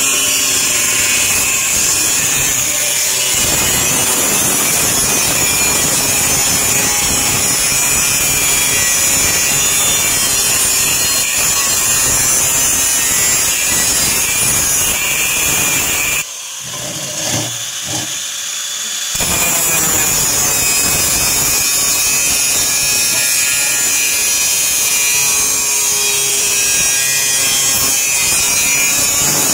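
A power tool cutting the sheet-metal cable tray with a steady, loud cutting noise. The cut breaks off for about three seconds a little past the middle, then starts again.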